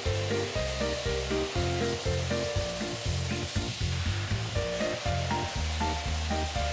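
Background music with a bass line and a simple melody in a steady rhythm, over the steady hiss of a vacuum cleaner running.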